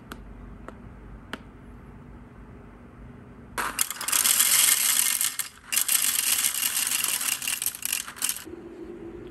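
Whole coffee beans poured from a bag into the clear plastic hopper of a DeLonghi coffee grinder: a loud, dense rattle of beans landing, with a brief pause midway. A few light clicks come before it, and a steady low hum starts near the end.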